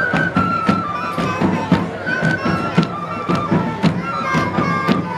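Live Andean traditional festival music: a high flute melody of held, stepping notes over steady drum beats, about three a second.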